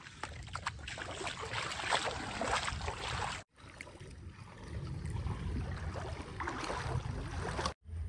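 Feet wading through shallow, muddy paddy-field water, splashing irregularly with each step.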